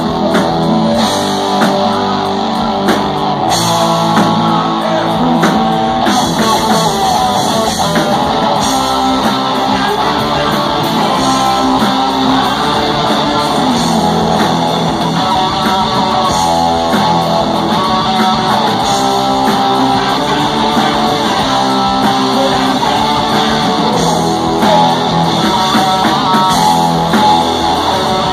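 Live rock band playing loudly: two electric guitars, bass guitar and drum kit.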